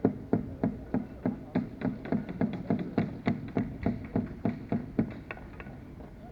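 A rapid, even series of about twenty sharp knocks, about three to four a second and quickening slightly, stopping about five and a half seconds in.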